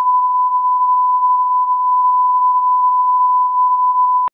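Steady 1 kHz line-up tone, the reference tone that runs with colour bars on a commercial's slate. It cuts off with a click near the end.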